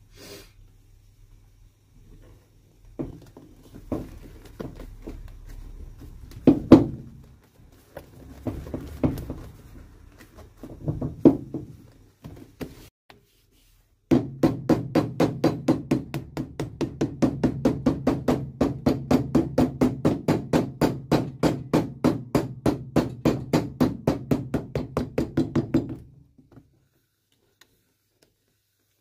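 Cobbler's hammer tapping a new leather sole down onto a shoe bottom on a last stand: a few scattered knocks first, then from about halfway a long run of quick, even taps, about five a second, that stops abruptly a few seconds before the end.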